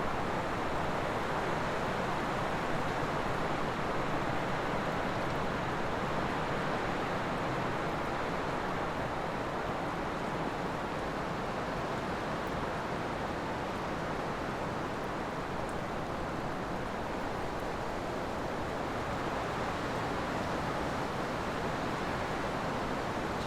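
A steady, even rushing noise with no distinct events or pitch.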